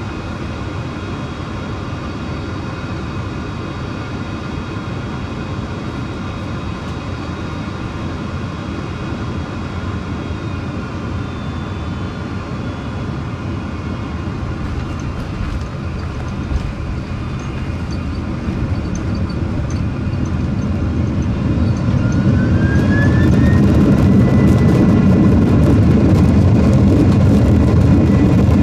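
Jet airliner cabin noise on landing: a steady engine drone with several whining tones and a short knock about two-thirds of the way in. Near the end the engines spool up with a rising whine that then holds, and the low roar grows louder, typical of reverse thrust on the landing roll.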